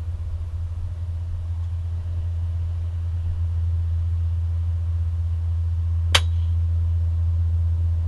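Strong wind on the microphone making a steady low rumble, with a single sharp crack of a PCP air rifle shot about six seconds in.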